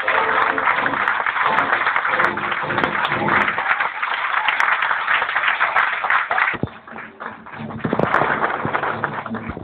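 Dance music playing over a dense wash of audience clapping, dipping briefly about two thirds of the way through and then coming back.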